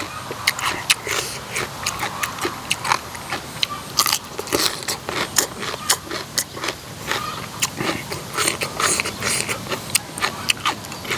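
A person chewing crunchy food close to the microphone, many quick irregular crunches and smacks: eating spicy green papaya salad (som tam) with pickled seafood.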